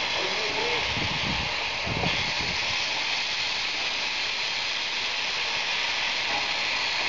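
Steam locomotive venting steam with a steady, even hiss.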